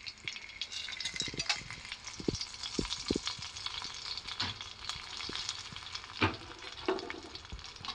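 Tempering seeds, garlic and curry leaves sizzling and crackling in hot oil in a small aluminium pot, with a few sharper pops.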